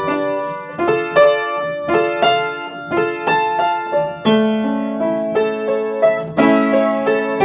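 Solo piano playing an instrumental passage: struck notes and chords, a few a second, each ringing and decaying, with longer held chords around the middle and near the end.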